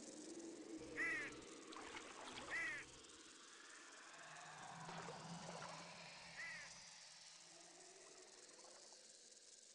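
Faint nature ambience with three short chirps, about a second in, two and a half seconds in and six and a half seconds in.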